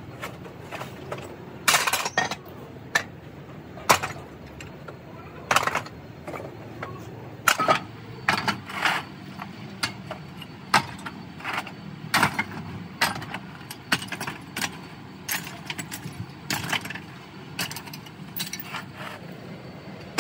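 Scrap metal pieces clanking and clinking against each other and the steel bin as they are sorted and tossed by hand, in irregular sharp knocks about once a second, over a steady low hum.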